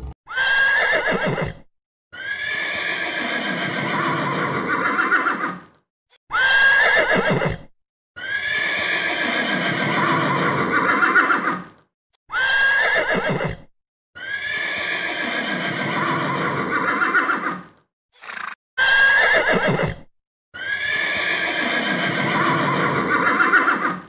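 Horse neighing: a short whinny followed by a longer neigh, the same pair repeated four times about every six seconds.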